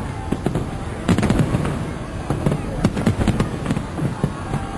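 Fireworks display: rapid, irregular bangs and crackles of aerial shells bursting, coming in dense clusters.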